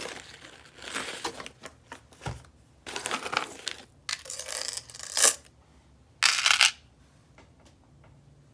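Gold chain jewelry and its packaging being handled: a series of short crinkling and clinking bursts, the loudest two about five and six and a half seconds in.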